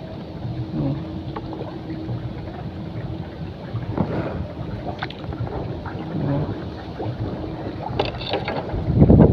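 Wind buffeting the microphone over open water, with gusts near the end, over a faint steady motor hum.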